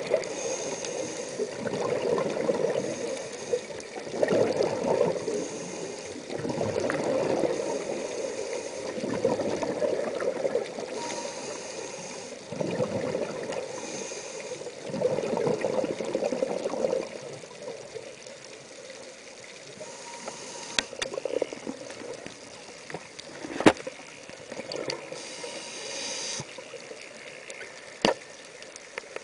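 Scuba diver's regulator breathing underwater, heard through a camera's underwater housing: a hiss on each inhale and a burst of bubbling exhaust every few seconds, fainter in the second half. A few sharp clicks near the end.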